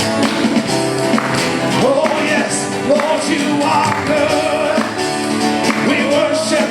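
Live gospel worship music: a band with acoustic guitar and percussion playing steadily, with singing coming in about two seconds in.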